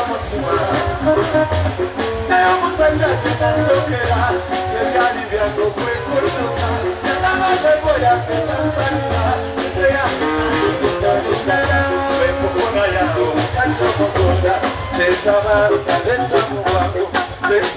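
Live band music with a male singer singing into a microphone over a steady beat, played through a PA system.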